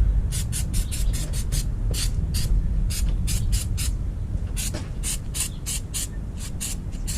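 Hand trigger spray bottle of cleaning solvent pumped in a rapid series of short sprays, a few per second, wetting down a freshly prepared axle hub before painting.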